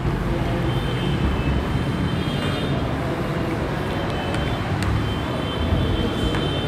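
Cloth duster rubbed back and forth across a whiteboard, a steady scrubbing rub with a low rumble, as the board is wiped clean.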